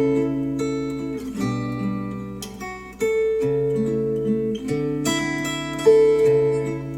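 Acoustic guitar music with strummed chords, a new chord struck every second or two and left to ring, played back through Polk Audio R200 bookshelf speakers driven by a NAD C 338 amplifier.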